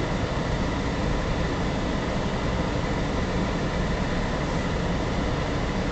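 Steady engine and road noise of a car towing a caravan at low speed, heard from inside the cabin.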